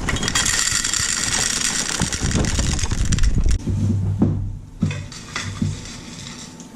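Dry breakfast cereal rattling as it is poured into a bowl for about three and a half seconds, followed by quieter scattered knocks and handling sounds that fade toward the end.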